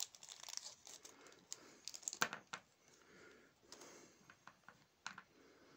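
Small cast-metal beads clicking as they are set down on a plastic cutting mat, with the light crinkle of a small plastic bag being handled. Quiet, scattered clicks, the sharpest a little after two seconds and another near the end.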